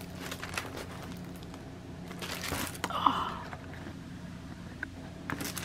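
Clear plastic wrapping and a paper instruction sheet rustling and crinkling as they are handled, in a few short spells, loudest about three seconds in, over a faint steady hum.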